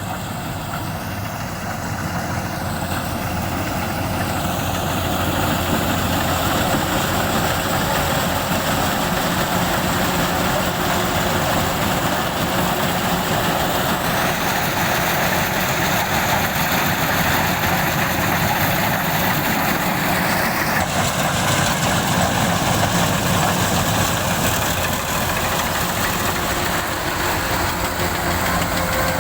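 Kubota combine harvester's diesel engine and machinery running steadily, growing louder over the first few seconds.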